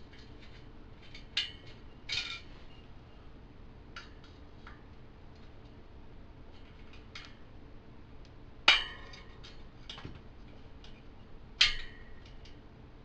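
Metal spokes and nipples clinking against the rim and hub as old bicycle spokes are unscrewed and pulled out: scattered light metallic ticks, with two sharper ringing clinks about two-thirds of the way through and near the end.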